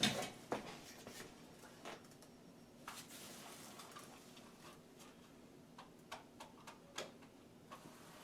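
Faint, scattered light clicks and soft brushing: a paintbrush working a coat of paint onto a wooden soffit and fascia board, over a faint steady hum.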